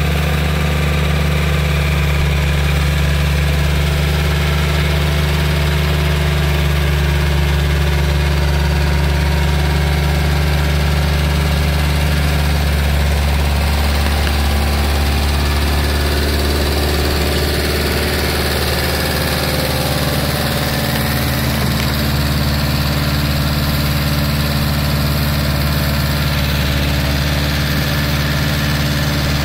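Farm tractor's diesel engine running steadily under load as it drives a rear-mounted bund-forming implement through wet paddy mud.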